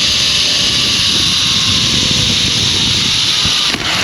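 Zip line trolley pulleys running along the steel cable with a loud, steady high hiss, mixed with wind buffeting the camera mic. The hiss eases off near the end as the rider comes in to the platform.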